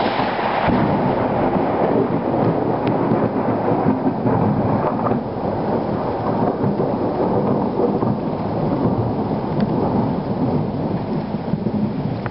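Loud, long rumble of thunder from a close lightning strike, going on without a break for more than ten seconds, with rain falling.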